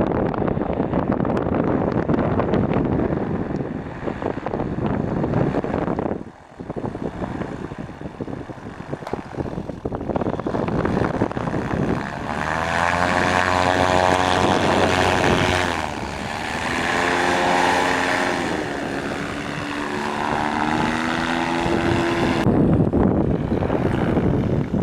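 Wind noise on the microphone, then a paramotor's engine and propeller droning overhead from about halfway through, its pitch rising and falling as it passes.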